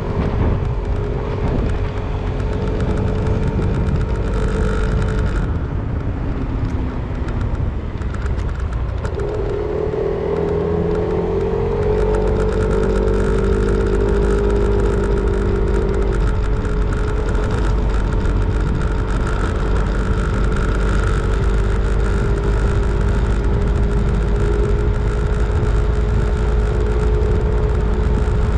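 Yamaha Zuma 125 scooter's single-cylinder four-stroke engine running under way, with wind rumble on the microphone. The engine note dips about eight seconds in, then climbs as the scooter speeds up on its gearless automatic transmission, and holds steady for the rest.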